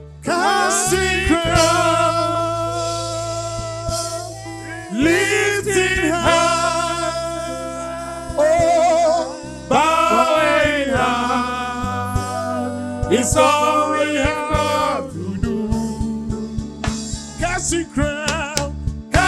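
Gospel worship music: a singing voice with vibrato over sustained accompaniment chords, coming in suddenly just after the start.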